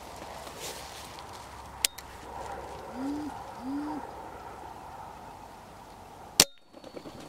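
Two short soft coos from a wood pigeon, each rising and falling, then, about six and a half seconds in, one sharp loud shot from a Weihrauch HW97 .177 spring-piston air rifle, followed by a few small ticks.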